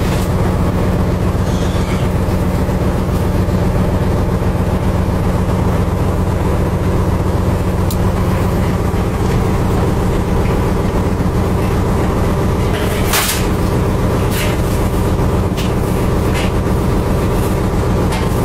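Boat engine running with a steady low drone, with a few sharp clatters about two-thirds of the way through.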